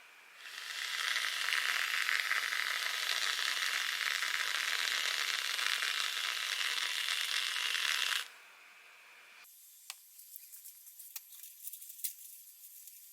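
A steady rushing hiss that starts suddenly, runs about eight seconds and cuts off abruptly, followed by faint scattered clicks.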